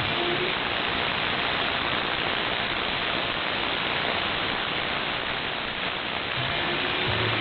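Steady shortwave radio static: an even hiss from a receiver tuned to 3955 kHz in AM, with the rock music broadcast sunk beneath the noise until it starts to come back near the end.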